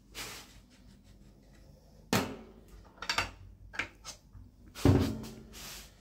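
Metal knocks and clunks from a hand-loaded oil friction-test machine being opened up after it seized, as its lever arm is handled and the test roller taken out. There is a sharp clunk about two seconds in, a few lighter knocks, and the loudest clunk about five seconds in.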